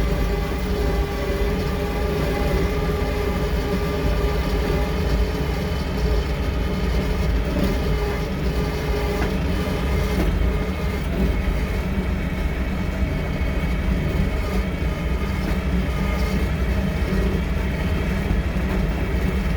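John Deere 450K LGP crawler dozer's diesel engine running steadily, with an even low rumble and a steady engine note.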